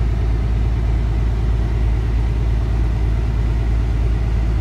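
Paccar MX-13 inline-six diesel running steadily, a constant low drone with no changes, while the truck does a forced, parked DPF regeneration.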